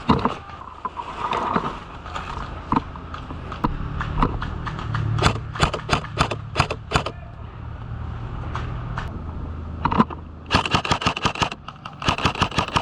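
Airsoft guns firing: a string of single shots a few seconds in, then two rapid full-auto bursts near the end. A low steady hum sits under the middle part.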